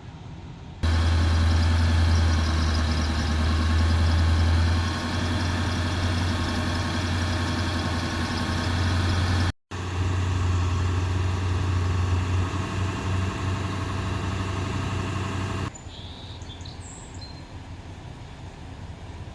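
Fire truck engine running close by, loud and steady with a deep low hum. It cuts out for an instant about halfway, and about three-quarters through it drops to a much quieter level.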